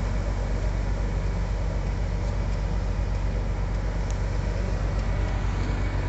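Engine of a snow-clearing front loader running steadily at low revs, a continuous low rumble.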